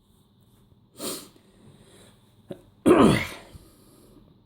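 A man sneezes: a short sharp intake of breath about a second in, then a loud sneeze near the middle whose voiced pitch falls away as it fades.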